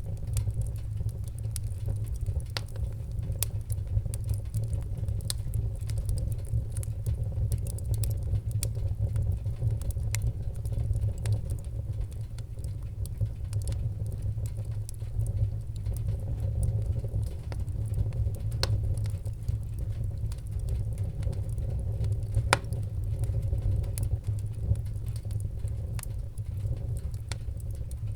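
Fire burning: a steady low rumble with irregular sharp crackles and pops, one louder pop near the end.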